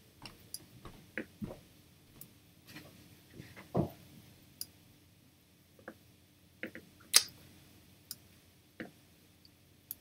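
Computer mouse clicking: scattered single clicks with a few soft knocks in between, the sharpest click about seven seconds in.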